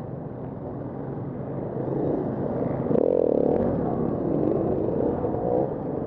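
KTM 350 Six Days single-cylinder four-stroke enduro engine running at low revs, then revving up and down from about three seconds in. Other dirt bikes run close by.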